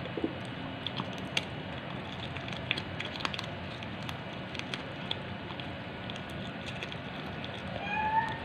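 A cat chewing food, with many small crunching clicks, then one short meow near the end.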